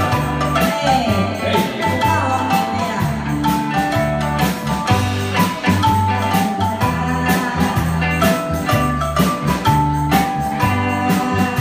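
Live band music with a steady beat: an electronic keyboard melody over bass and a drum kit.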